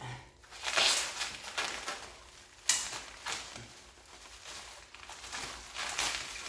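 Packing material rustling and crinkling as it is handled and pulled away from a boxed clock, with a few sharper crackles.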